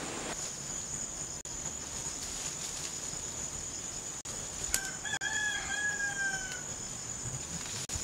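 A rooster crowing once: one long call of about two seconds, starting a little past halfway, over a steady high-pitched whine.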